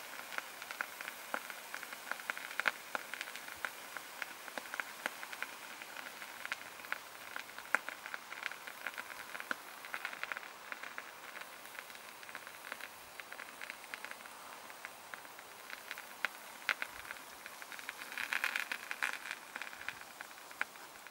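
Continuous crackling with many small pops from a burning titanium and potassium hydroxide mixture smouldering down, with a denser run of crackles near the end.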